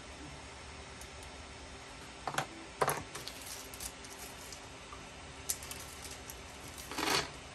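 Small 3D-printed plastic parts being handled and fitted together: scattered light clicks and knocks, two louder ones a couple of seconds in, and a short scraping rustle near the end.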